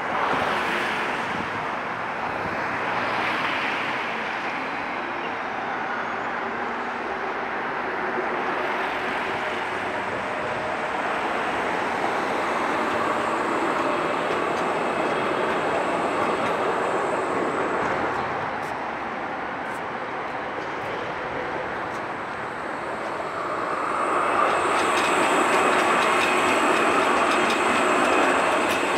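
Prague trams running past on street track: a steady rumble of wheels on rail. About five seconds before the end it grows louder, with a thin high whine, as a Škoda 15T low-floor tram passes close.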